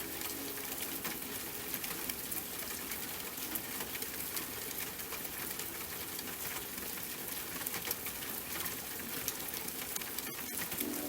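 Steady rain falling, a dense hiss full of fine drop ticks, with no music over it.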